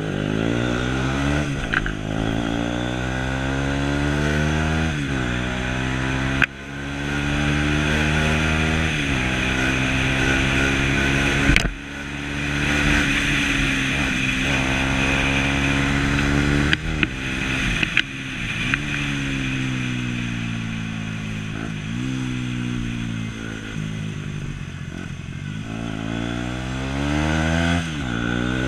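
Sport motorcycle engine accelerating through the gears. Its pitch climbs repeatedly and drops sharply at each gear change, winds down slowly around the middle, then picks up again near the end. Wind rushes over the microphone throughout.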